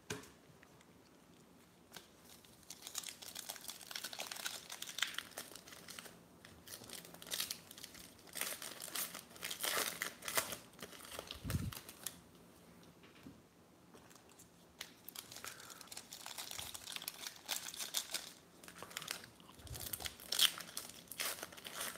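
Foil wrapper of a baseball card pack crinkling and tearing as it is opened by hand, in irregular bursts, with a low bump about halfway through.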